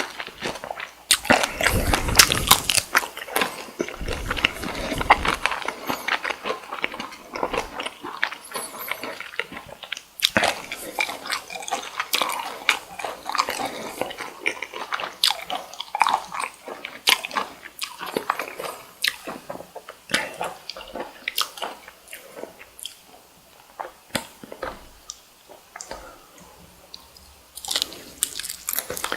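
Close-miked eating sounds of cooked cocktail shrimp: bites and wet chewing with many small clicks and crunches. The sounds thin out and grow quieter in the last third, then pick up again near the end.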